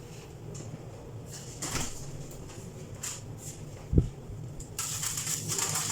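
Kitchen handling sounds while a salad is assembled in a bowl: a few light clicks, a dull thump about four seconds in, then steady rustling from about five seconds on, over a low steady hum.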